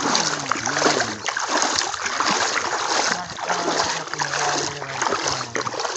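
Water splashing and sloshing as a China trap net is hauled out of the water and emptied, with men's voices in the background.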